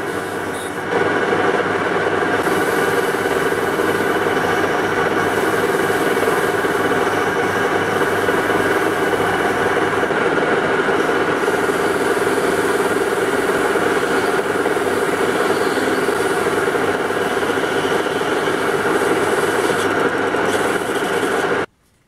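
Metal lathe cutting a steel wheel blank, the tool shaving V-grooves into it: a loud, steady machining noise with a humming tone. It gets louder about a second in and cuts off suddenly near the end.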